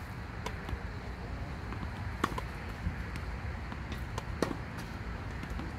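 Tennis ball being hit by rackets and bouncing on the court during a rally, heard as a series of sharp pops at uneven intervals. The loudest pops come about two seconds in and again about four and a half seconds in, over a steady low background rumble.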